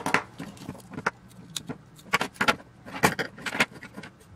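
Irregular clinks and rattles of small metal parts, switches and a wiring harness being handled and shifted on a workbench. A sharp knock comes at the start, with a cluster of clatters about three seconds in.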